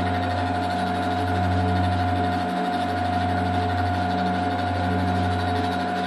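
Milling machine running, its rotating cutter machining the face of a model locomotive's cylinder block: a steady whine over a low hum that dips briefly now and then.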